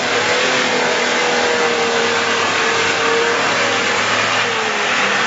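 A 4x4 SUV's engine running steadily under load, its pitch wavering slightly as it crawls up a steep, muddy bank.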